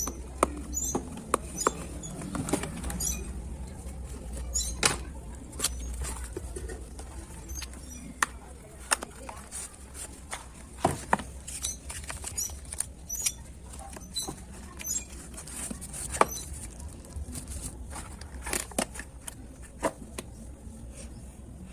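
Irregular clicks and taps of hands handling a beard trimmer and its plastic packaging, over a steady low hum.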